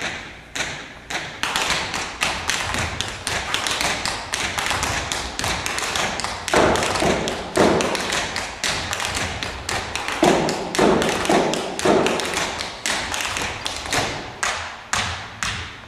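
Dancers' feet tapping and stamping on a stage floor in a rhythmic percussive routine, several sharp strikes a second with no music. Heavier thuds come in two stretches around the middle.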